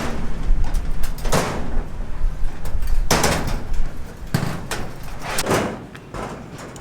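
A series of about five loud bangs with short scraping tails, like heavy objects being knocked or slid, over a low rumble. The sounds fade toward the end.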